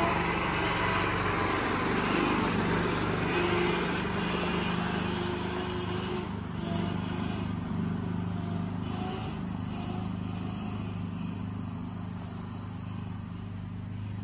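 A small single-cylinder engine (a 420cc Duromax) on a homemade mini Pinzgauer 6x6 runs steadily as the vehicle drives off. The sound fades gradually as it moves away.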